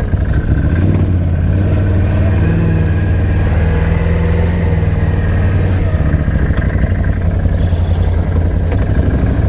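ATV engine running steadily at low revs, with a slight rise in pitch a couple of seconds in before settling back.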